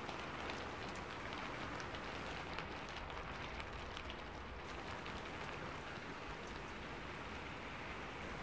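Steady rain patter, with a few faint small ticks scattered through it.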